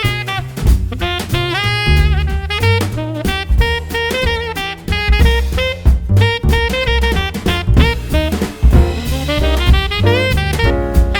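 Background music: an upbeat jazz tune with saxophone melody over a steady drum beat.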